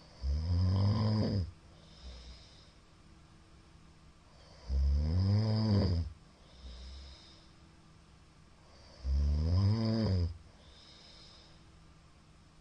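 A middle-aged man snoring loudly: three long, low snores about four and a half seconds apart, the pitch of each rising slightly and then falling, each followed by a fainter breath.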